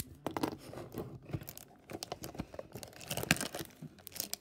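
Clear plastic shrink-wrap being torn and crumpled off a trading-card box, an irregular run of sharp crackles and crinkles.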